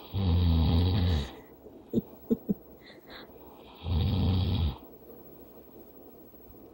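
A man snoring in his sleep: two loud snores about four seconds apart, each a little over a second long, with a low fluttering rattle under a breathy hiss. Three short clicks fall between them.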